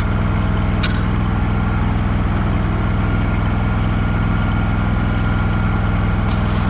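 Hobart Champion Elite engine-driven welder/generator running steadily, with one sharp click about a second in.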